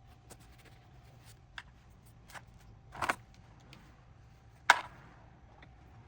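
Scattered light clicks and knocks of tools or parts being handled, with a short clatter about three seconds in and a sharp, louder knock a little before five seconds, over a faint steady hum.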